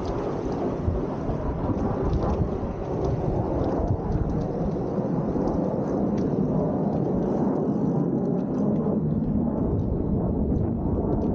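Steady low rumbling noise with no clear tone, and a few faint clicks over it.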